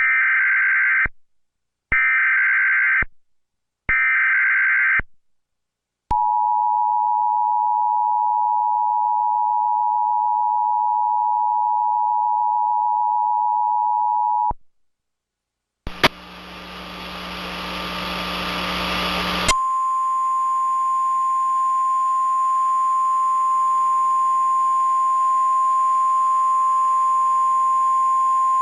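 Emergency Alert System tones: three one-second bursts of warbling SAME data header, then the two-tone attention signal held steady for about eight seconds. After a brief gap comes a burst of hiss, and then a single steady tone near 1 kHz, the NOAA Weather Radio warning tone, runs on over a low hiss.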